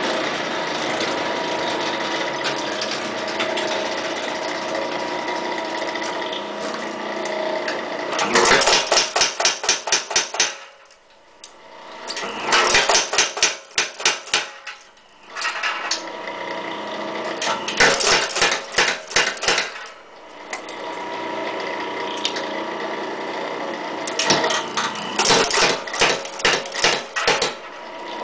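Clay Spencer / Ray Clontz tire hammer (treadle power hammer) forging hot 1-inch round stock, in four bursts of rapid, even blows of a few seconds each. A steady hum runs between the bursts.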